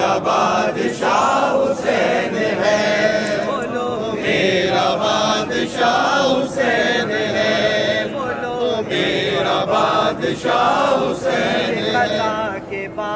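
Group of men chanting together, unaccompanied, in a devotional refrain praising Imam Hussain, with the melody rising and falling continuously.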